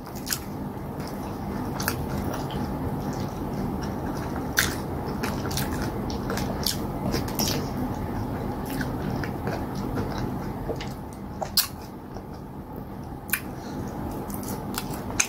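Close-up chewing and mouth sounds of a person eating soft cassava fufu with soup by hand, with scattered short wet clicks and smacks over a steady low background noise.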